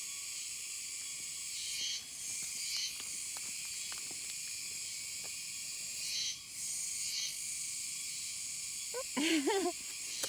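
Dense, steady, high-pitched chorus of insects buzzing. A short voice-like sound comes near the end.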